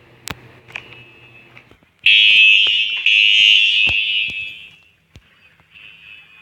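Siemens fire alarm sounder giving a loud, high-pitched tone that starts about two seconds in and lasts nearly three seconds, broken once briefly. A fainter tone at the same pitch comes before and after it, with a few sharp clicks.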